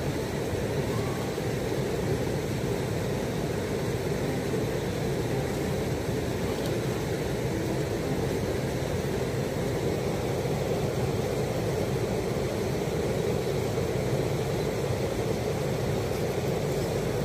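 Electric motor and geared drivetrain of a radio-controlled scale rock crawler running steadily as it climbs over rock.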